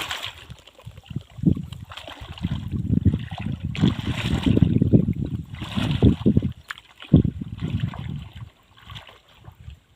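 Pond water sloshing and splashing in irregular surges, as a net is worked through shallow water, easing off near the end.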